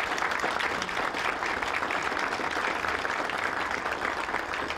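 Audience applauding, many people clapping at once, steady throughout.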